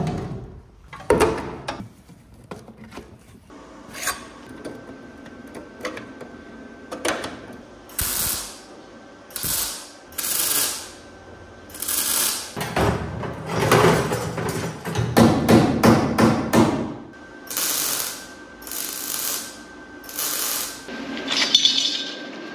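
Workshop metalwork on car body sheet metal: a series of short, sharp bursts of noise, each under a second, coming thick and fast in the second half, with a faint steady tone underneath from about four seconds in.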